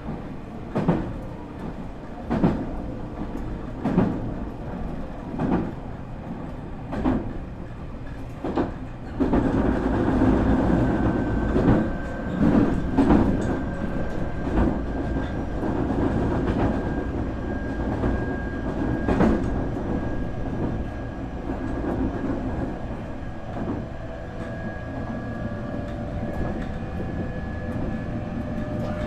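Nankai 8300 series electric train running, heard inside the motor car: wheels click over rail joints about every one and a half seconds. About nine seconds in, the sound grows louder with a rumble and a steady high whine from the Hitachi two-level IGBT VVVF inverter and the totally enclosed Toyo Denki induction motors. Near the end, lower motor tones rise slightly.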